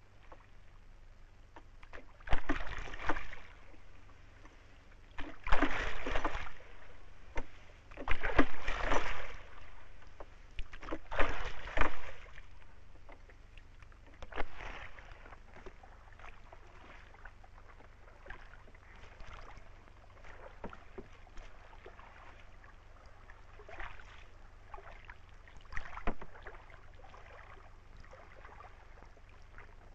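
Oars of a wooden rowboat pulling through the water: four loud splashing strokes about three seconds apart, then softer, scattered splashes and sloshing as an eel fyke net is handled from the boat. A steady low hum runs underneath.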